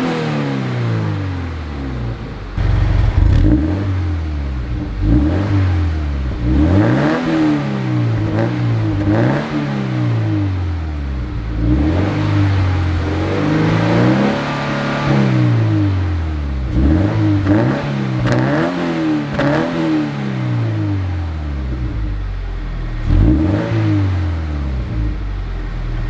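Subaru BRZ's flat-four engine revved again and again through a freshly installed HKS Legamax Premier muffler and mid-pipe, the pitch climbing and dropping back every couple of seconds, with one longer, higher rev about halfway through. It is a mild, stock-like note, a little deeper and rumblier than stock.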